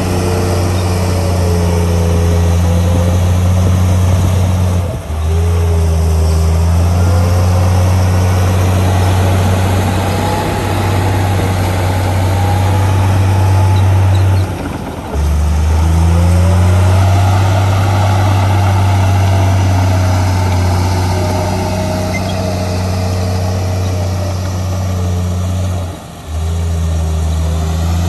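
Komatsu D53A crawler bulldozer's diesel engine running under load as the dozer pushes soil, a heavy steady drone with a higher wavering whine over it. The sound dips briefly three times, about a third of the way in, near the middle and near the end.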